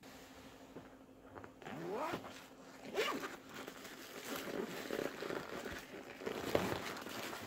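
A run of rasping, ripping pulls, some rising in pitch, as material is pulled and torn during pattern-making work on a motorcycle seat cover. The sounds start about a second and a half in and recur several times.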